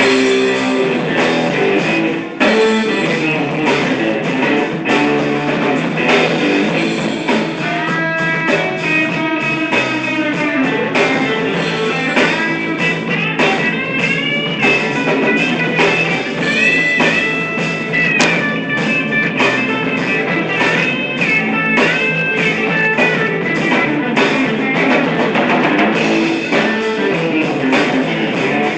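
Rock music with guitar and a drum kit keeping a steady beat; through the middle a high lead line plays notes that bend up and down in pitch.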